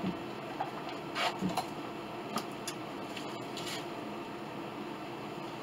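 Steel clamps being handled and tightened on a glue-up at a wooden workbench: a handful of short metallic clicks and scrapes between about one and four seconds in, over a steady background hum.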